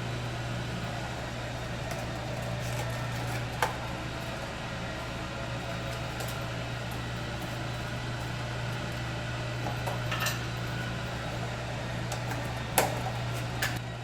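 A steady low machine hum, like a ventilation fan, runs throughout. A few sharp clicks and taps come over it, the loudest about three-quarters of the way through.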